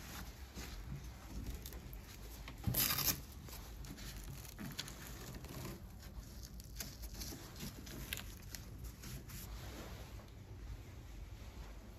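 A hook-and-loop (Velcro) strap on a dog knee brace being worked, with one short, loud tearing rip about three seconds in, amid soft rustling and rubbing of fabric straps as they are handled.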